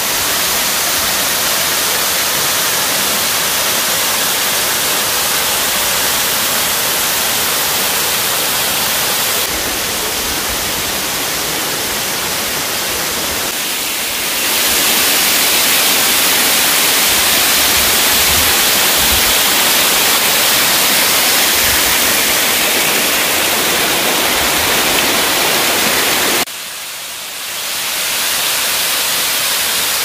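Waterfall cascading down a rock face: a steady rushing hiss of falling water. It gets louder about halfway through and drops away for a moment near the end before coming back.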